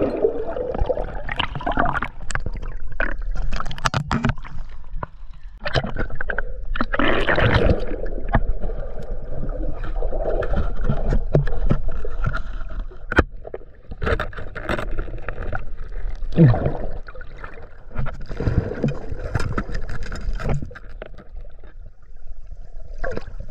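Water sloshing and gurgling with irregular knocks and clatter, as from someone moving and handling gear in shallow river water.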